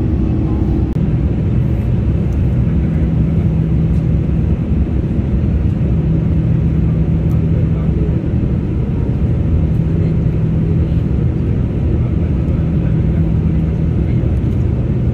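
Boeing 787-9 cabin noise during the climb: a steady rumble of the jet engines and rushing air, with a low hum underneath.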